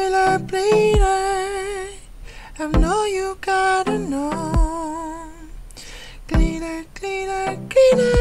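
A wordless pop melody sung on nonsense syllables: long held notes with vibrato and a few sliding phrases, sketched as a first draft of a song. Under it a looping beat lands a low thump about every 1.8 seconds.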